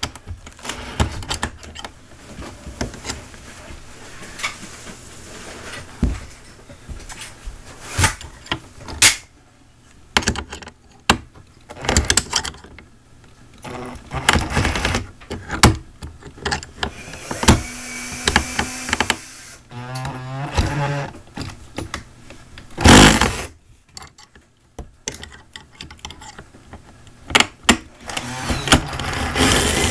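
A tool prying and working at a window shade's mounting clips: a run of irregular clicks, knocks and scrapes, with one loud clunk about three-quarters of the way through.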